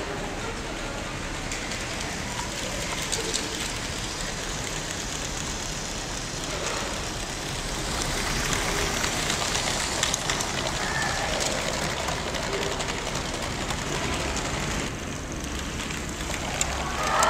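A LEGO train running on plastic LEGO track: a steady rattling hiss of the wheels and motor with many small clicks over the rails.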